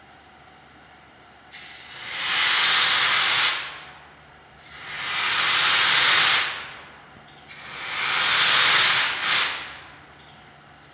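Steam locomotive blowing off steam in three loud hissing blasts of about two seconds each, each swelling up and dying away, the last ending in a short extra puff.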